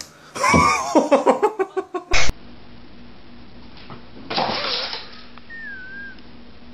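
A person laughing in a quick run of short bursts that fall in pitch, cut off abruptly by a click. Later comes a brief rush of noise and a short, thin, wavering squeak.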